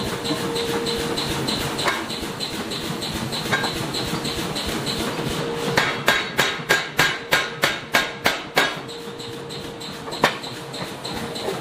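Forging hammer striking a closed die on a red-hot steel disc: a quick run of about ten heavy blows, three or four a second, about halfway through, then a single knock. Under it runs a steady machine hum with fast light ticking.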